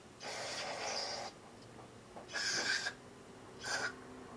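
Spray hissing in three short bursts as the lawnmower's carburetor parts are washed down: the first about a second long, the last brief.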